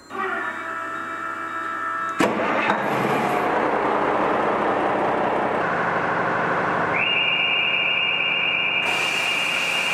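Ferry machinery running loudly, with a sharp knock about two seconds in. From about seven seconds a steady high-pitched warning tone sounds, and there is a short hiss near the end.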